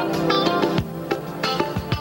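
Instrumental background music: held chords and a melody over a kick-drum beat.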